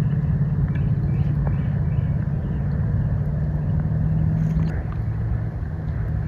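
A steady low engine hum, like a motor vehicle running some way off, that drops in pitch a little over four and a half seconds in. Faint, short bird chirps come through it.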